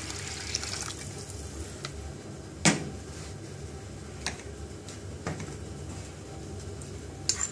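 Water poured from a jug into a stainless steel pot of red lentils, then a few light knocks, the loudest about two and a half seconds in, over a steady kitchen background hiss.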